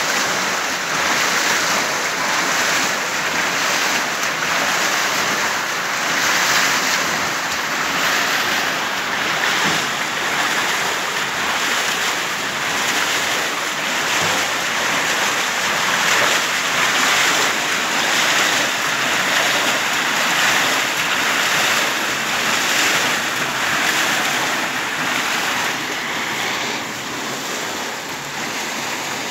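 Water pouring and splashing through the buckets of a turning iron water wheel, a steady loud rush that eases a little near the end.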